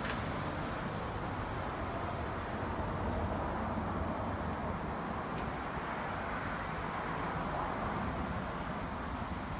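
Road traffic on a wide street: a steady wash of passing car noise.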